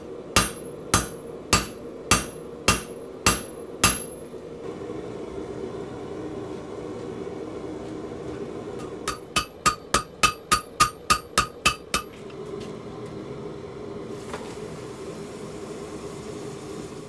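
A hand hammer strikes red-hot steel bar stock on an anvil, seven even, ringing blows, over a steady low rumble of a propane forge. Partway through comes a faster run of about a dozen lighter ringing strikes, about three a second. Near the end there is a steady hiss as the hot steel is quenched in a bucket of water.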